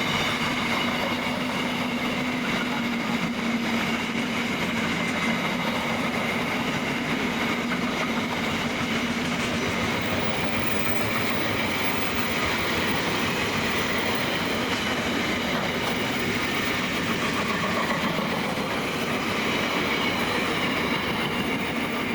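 Wagons of a long freight train rolling past: a steady, continuous noise of steel wheels on rail, with steady whining tones held over it.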